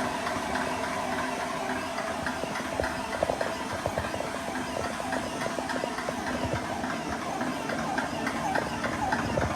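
Portable high-pressure PCP air compressor running steadily: an even motor hum with a fast ticking chatter from the pump.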